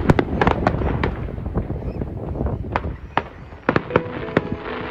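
Fireworks display: aerial shells bursting in a rapid run of sharp bangs and crackles, easing briefly about three seconds in, then several sharp bangs again near the end.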